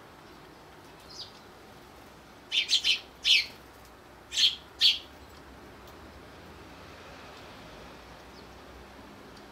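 Eurasian tree sparrows chirping: short, high chirps, a quick run of four about two and a half seconds in and two more about four and a half seconds in.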